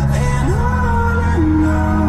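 A song with a wavering sung melody over a steady bass line, played through a 2016 Volkswagen Jetta's factory-original car stereo. The bass note changes about half a second in.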